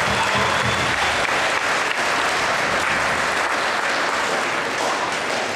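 A large audience applauding, with a low hum underneath for about the first second, and the clapping easing slightly near the end.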